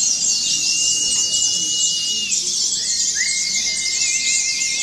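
Many white-eyes (pleci) singing at once in a dense, constant high twittering chatter. Long, steady whistle-like tones sound over it, one ending about two seconds in and another starting about three seconds in, wavering near the end.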